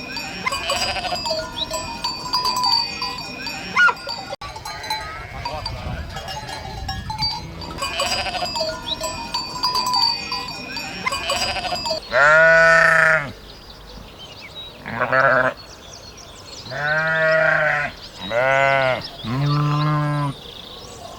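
Sheep bleating. A quieter flock background with faint calls and steady ringing tones runs for about the first twelve seconds. Then come five loud bleats, each about a second long or less, with short gaps between them.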